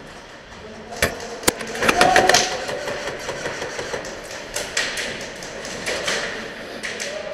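Airsoft gunfire and BB strikes in an indoor close-quarters game: two sharp clacks about a second in and half a second apart, a louder noisy burst around two seconds, then scattered lighter clicks.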